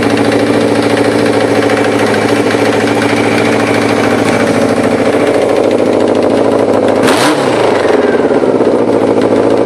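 Honda CB700SC Nighthawk S inline-four motorcycle engine idling steadily.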